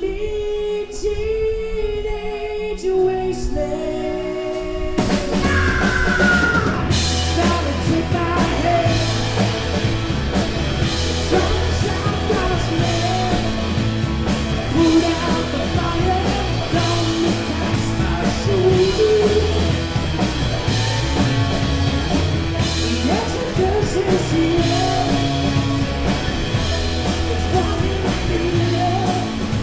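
Live rock band playing electric guitars and drum kit, with singing. The first few seconds are sparser, with held guitar notes, then the drums and full band come in about five seconds in and play steadily on.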